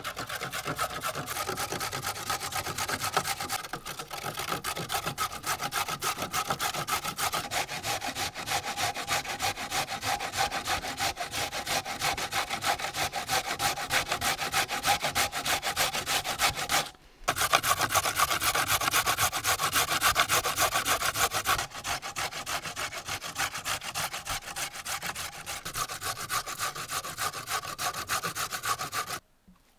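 Raw carrots being grated by hand on a metal box grater: a fast, continuous run of rasping scrape strokes, broken by a short pause a little past the middle, then stopping just before the end.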